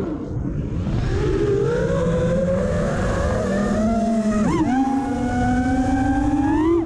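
FPV racing quadcopter's brushless motors and propellers whining in flight, the pitch rising and falling with the throttle. It climbs over the first few seconds, dips sharply and recovers about halfway through, then rises again near the end.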